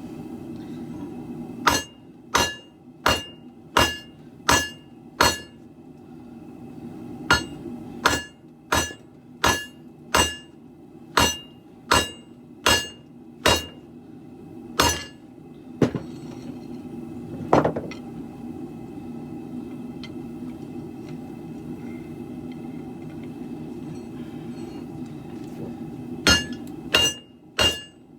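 Hand hammer forging a steel sword billet on an anvil: runs of ringing blows at about one and a half a second, a pause, then a single duller knock, and the blows resume near the end. A propane forge burner runs steadily underneath.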